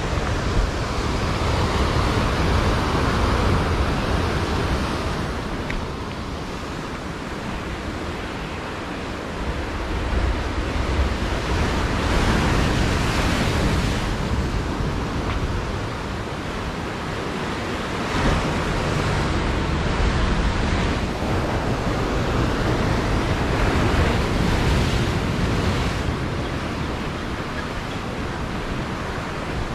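Ocean surf breaking on a lava-rock shoreline, the wash swelling and easing every few seconds, with a low wind rumble on the microphone.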